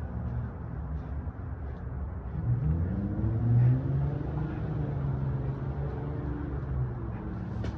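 A motor vehicle's engine running with a low rumble, rising in pitch about two and a half seconds in and loudest a second later before settling back.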